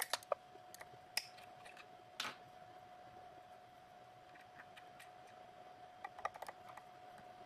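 Scattered small clicks and taps of a cutter being handled and fitted into the top of a CNC key cutting machine, with a short scrape a couple of seconds in and a quick cluster of clicks near the end, over a faint steady hum.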